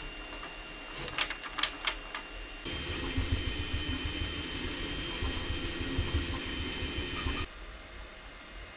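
A few sharp clicks, then a small machine running with a steady whine and a low pulsing hum. It starts suddenly about three seconds in and stops abruptly near the end.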